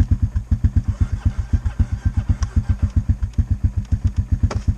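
Four-wheeler (ATV) engine idling, a steady low thumping of about eight beats a second. A single sharp click sounds near the end.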